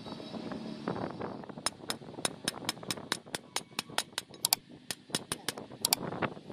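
A ratchet wrench clicking in a steady rhythm, about four to five clicks a second, as a nut in an open mini-tractor engine's timing gear case is turned to bring the gears round to their timing marks. The clicks start about one and a half seconds in and stop shortly before the end.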